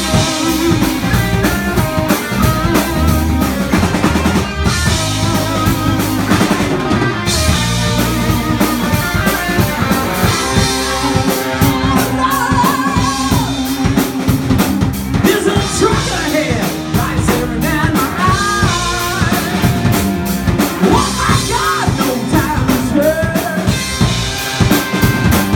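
Live rock band playing: a drum kit keeping a steady beat under electric guitars and a bass guitar.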